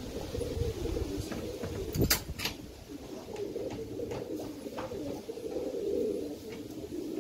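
Domestic pigeons cooing continuously in a low, warbling murmur. Two or three sharp clicks come about two seconds in.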